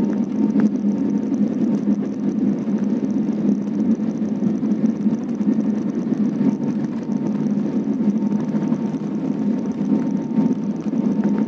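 Boeing 737 jet engines running at takeoff thrust during the takeoff roll, heard inside the cabin: a steady deep rushing noise with a faint high whine.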